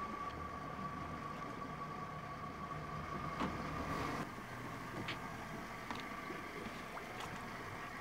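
A boat's engine idling steadily as the boat comes alongside a floating dock, with a few light knocks and clicks scattered through.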